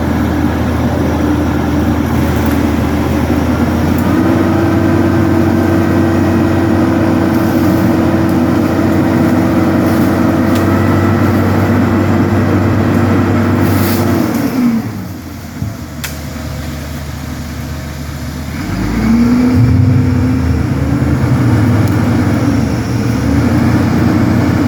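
An engine held at high revs, its pitch stepping up a little about four seconds in; about fifteen seconds in it drops to a lower, quieter idle, then revs back up about four seconds later.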